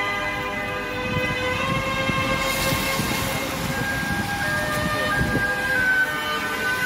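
Background music of long held, sustained notes that change pitch in steps.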